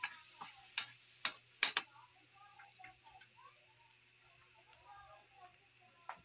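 Metal spatula clanking against a steel wok about four times in the first two seconds of stir-frying, over vegetables sizzling faintly in the pan. The sizzle then quietens once the stirring stops.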